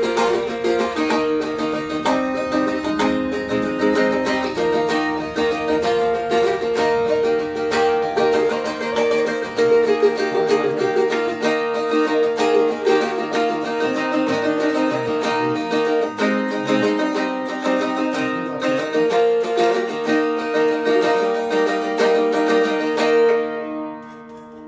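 Mahogany Seagull Merlin M4 stick dulcimer played unaccompanied: a picked and strummed diatonic tune over a steady ringing drone, with a mellow tone. The playing stops a little before the end and the last notes ring out.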